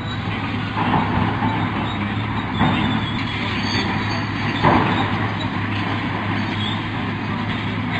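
Crawler bulldozer running steadily with a low hum, with three louder metallic clanks about one, three and five seconds in.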